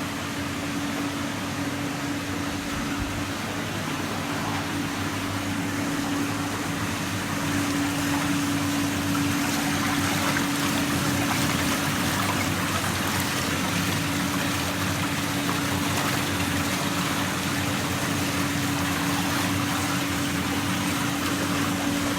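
Masria MAX Wash vegetable washer running: the washing pump's motor hums steadily while water churns and splashes in the stainless-steel drum. The sound grows a little louder about a third of the way in.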